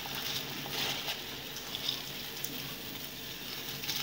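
Water at a rolling boil bubbling and hissing in a steel pot. Handfuls of basmati rice are dropped into it and patter into the water, a little louder in the first second or so.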